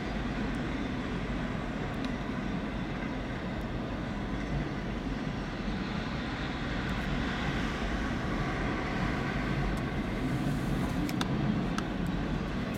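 Freight train passing: the steady rumble and rolling noise of CSX autorack cars moving along the track, with a few faint clicks near the end.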